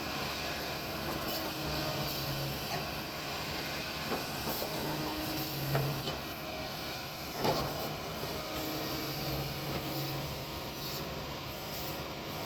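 Kobelco excavator's diesel engine running under varying load as it digs, with a few sharp knocks, the loudest about seven and a half seconds in.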